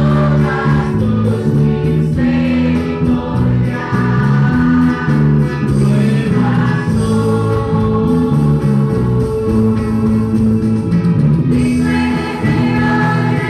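Live gospel worship song: a woman sings lead on a microphone over a small band of acoustic guitar, electric guitar and bass guitar, with group voices singing along.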